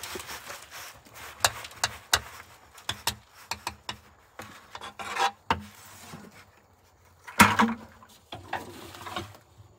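Composted chicken manure tipped from a plastic bucket into a steel cement mixer drum: the bucket scraping and rubbing on the drum's rim, with rustling and a run of small knocks, and a louder thump about seven seconds in.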